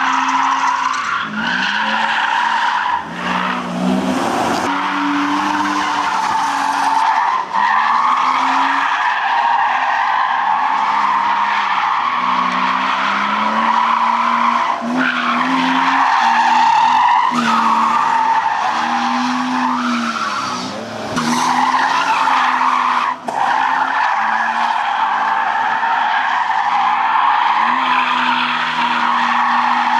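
BMW E36 Compact's 2.0-litre M50B20 VANOS straight-six revving up and down while the rear tyres squeal almost continuously in a drift, with brief breaks in the squeal. The owner says the engine was somewhat down on power from a shorted camshaft sensor.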